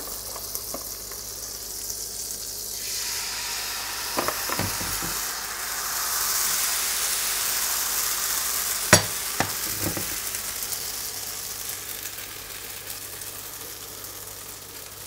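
Butter and then thin pancake batter sizzling in a hot frying pan. The sizzle swells in the middle and fades toward the end, with a few light knocks and one sharp click about nine seconds in.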